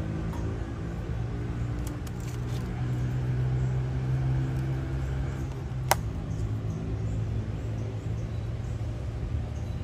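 Steady low engine hum from a motor vehicle, swelling slightly around the middle. About six seconds in, one sharp plastic click as a clear lid snaps onto the iced-drink cup.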